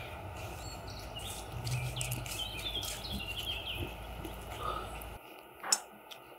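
Birds chirping in a quick run of short falling calls over a steady low outdoor background. The background cuts off abruptly about five seconds in, followed by a single sharp clink.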